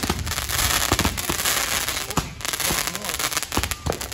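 Fireworks going off: a rapid, irregular run of sharp pops and crackles.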